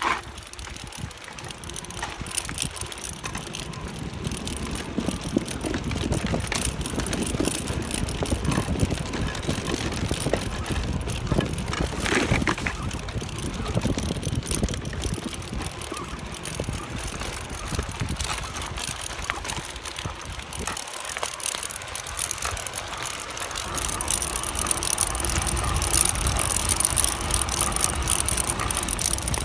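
Hase Kettwiesel Kross recumbent delta trike rolling along rough paths: tyres crunching over gravel and a wooden boardwalk, with small rattles and clicks from the frame and wind on the microphone, which gets heavier near the end.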